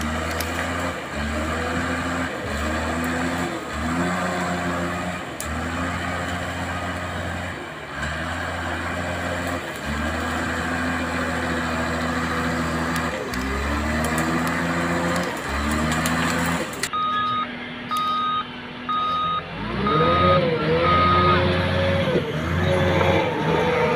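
RC model bulldozer running in short starts and stops, its motor whine rising at the start of each run. Partway through, a string of about six evenly spaced electronic reversing beeps sounds.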